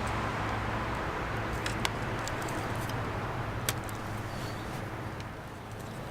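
Steady low background hum with a few small sharp clicks and taps, typical of hands handling wires and tools at a motorcycle's wiring.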